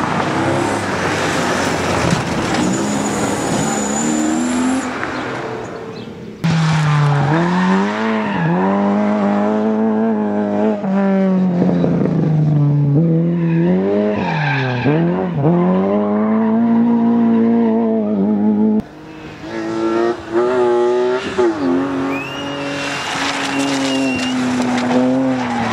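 Rally cars driven hard on a sprint stage, their engines revving up and dropping back again and again through gear changes, with tyres squealing. The sound changes abruptly to a different car about six seconds in and again a little before twenty seconds.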